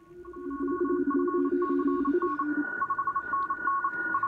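Several Morse code (CW) signals from the 40-meter band, heard through a Kenwood TS-590SG transceiver's receiver audio. Keyed dots and dashes at a few different pitches overlap over a steady tone, and the audio comes up in the first second. The lower-pitched signal stops about two and a half seconds in.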